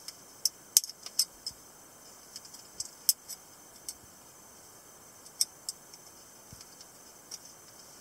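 Balisong (butterfly knife) being opened slowly by hand, its metal handles and blade clicking against each other. The sharp, irregular clicks come in small groups. The loudest are in the first second and about three seconds in.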